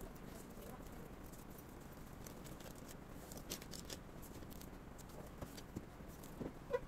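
Faint rustling and small clicks of tissue paper, plastic stationery and a ruler being handled on a desk. A brief squeak comes near the end.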